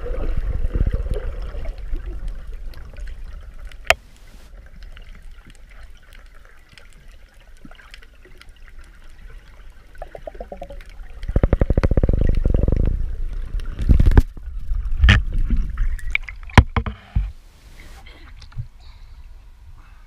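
Muffled underwater sound picked up by an action camera in its housing: a low water rumble with a loud stretch of rapid pulsing a little past halfway and several sharp knocks after it, going quieter near the end.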